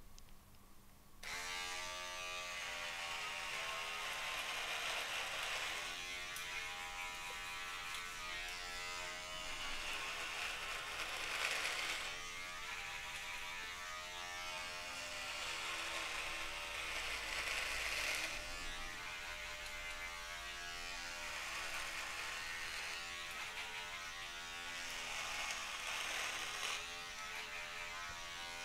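Electric beard trimmer switched on about a second in and buzzing, its tone wavering and dipping every few seconds as it is run through the beard.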